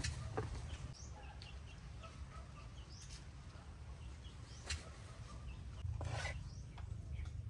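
Rural outdoor ambience: chickens and small birds calling in short chirps over a steady low rumble, with a sharp click a little before the five-second mark and a brief noisy burst about six seconds in.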